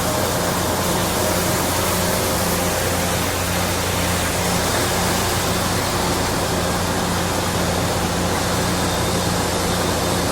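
Shin Nong rice mill machine, driven by a single-phase electric motor, running steadily: a low, even hum under a constant rushing noise, not very loud.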